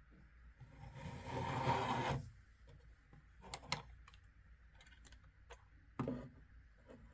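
Handling noise: a scrape or rustle lasting about a second and a half, then a few light clicks and a sharper knock near the end.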